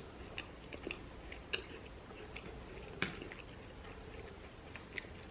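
A person chewing a cookie: faint, scattered small mouth clicks, with a slightly louder one about three seconds in.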